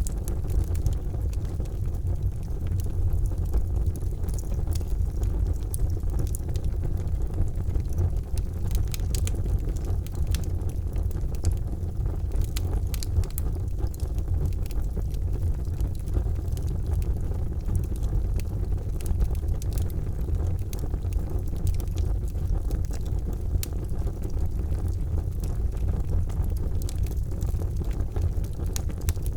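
Charcoal fire burning in a fireplace: a steady low rumble with many small, sharp crackles and pops scattered irregularly throughout.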